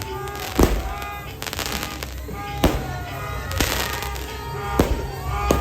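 Fireworks going off: several sharp bangs a second or two apart over continuous crackling, with music playing in the background.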